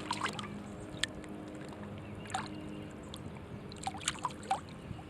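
Faint splashing and small clicks of a largemouth bass being released back into the water, a few short sounds scattered through, over a faint steady hum.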